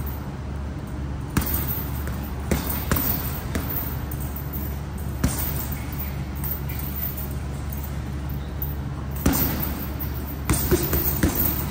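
Boxing gloves punching a hanging heavy bag: scattered thuds at irregular intervals, with a quicker cluster of hits near the end, over a steady low hum.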